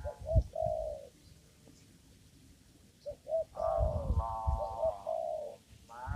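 Spotted dove cooing: a short phrase of low, pitched coo notes in the first second, then after a pause a longer phrase of several coos.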